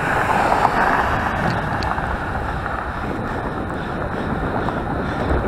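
Wind rushing over a helmet-mounted action camera's microphone while riding a road bike, a steady noise that is a little stronger in the first second or so.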